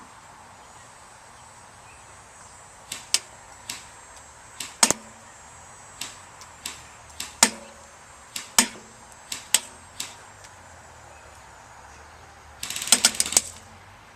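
Tokyo Marui MP5 A2 electric airsoft gun with a modified motor firing single shots, a dozen or so sharp clicks at irregular intervals, then a short full-auto burst of about a second near the end.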